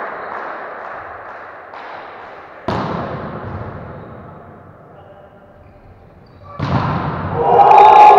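A volleyball struck hard twice, about four seconds apart, each hit ringing out with a long echo in the sports hall. Near the end, players' voices rise into loud shouting and cheering as the point is won.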